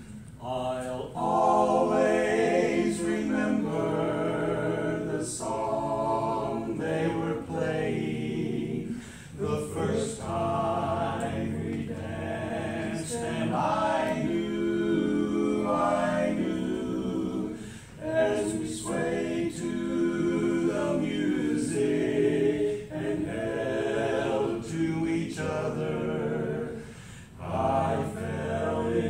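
Barbershop quartet of four men singing a cappella in close four-part harmony, in long phrases with short breaks between them.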